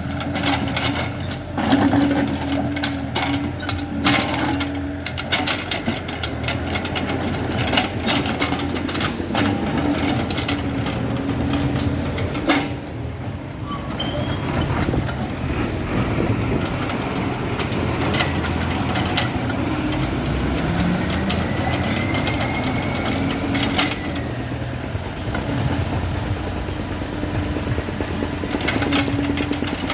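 Excavator's diesel engine running steadily, with many sharp clanks and knocks over it. The engine note rises briefly a little after the middle.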